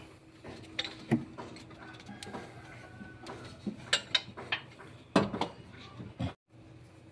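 Steel exhaust front pipe of an Isuzu Crosswind knocking and clinking against engine parts as it is worked down into place at the exhaust manifold: uneven sharp metallic taps and knocks, the loudest a little after five seconds.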